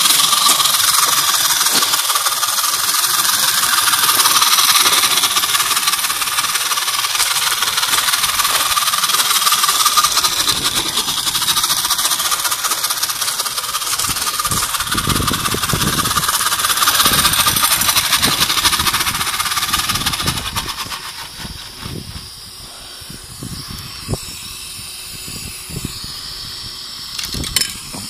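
Scratch-built model steam traction engine letting off steam: a loud steady hiss, with the engine's irregular exhaust beats coming through from about halfway. About twenty seconds in the hiss dies down, leaving a few light clicks.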